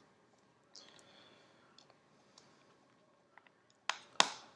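Small plastic clicks and light handling of an opened Samsung Galaxy S4 on a tabletop as fingers work its parts, with a faint rustle about a second in and two sharp clicks close together near the end, the second the loudest.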